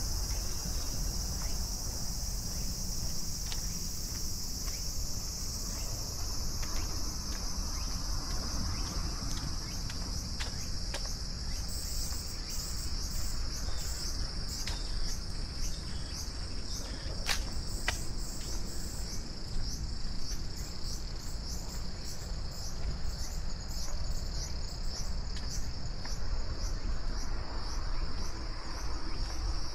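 Steady, high-pitched chorus of insects. About twelve seconds in, a second insect's pulsing call joins at roughly two pulses a second and fades out near the end, with a few faint clicks scattered through.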